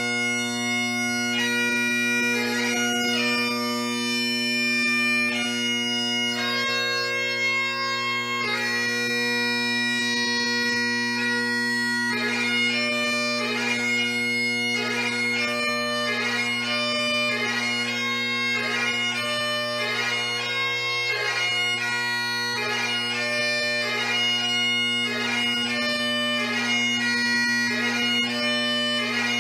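Great Highland bagpipe playing piobaireachd: the drones hold a steady tone under the chanter's melody. About twelve seconds in, the melody turns to quicker, closely ornamented notes.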